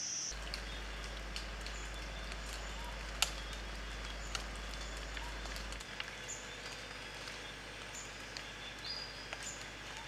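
Rainforest ambience: a steady background hiss with scattered short, high bird chirps and a few sharp clicks, over a low hum that fades about six seconds in.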